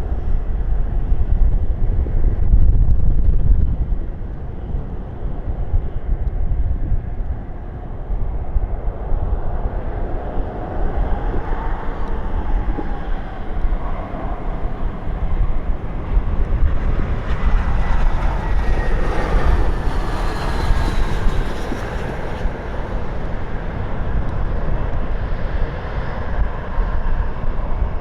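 Jet aircraft passing, its engine noise building to a peak about two-thirds of the way through, with a whine that falls in pitch as it goes by. Strong wind buffets the microphone with a heavy low rumble throughout.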